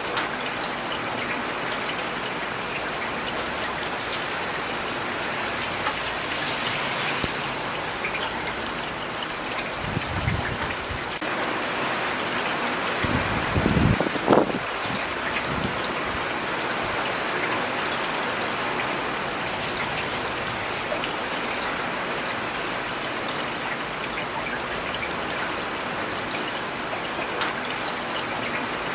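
Steady rain falling, a dense even hiss of drops. About halfway through, a low rumble swells briefly twice, the second louder.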